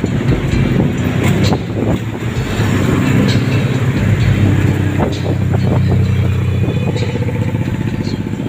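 Tricycle's motorcycle engine running steadily under way, heard from inside the sidecar along with road noise and a few brief knocks.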